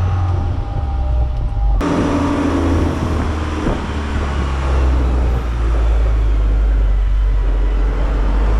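Heavy engine running with a steady low rumble, which changes abruptly about two seconds in.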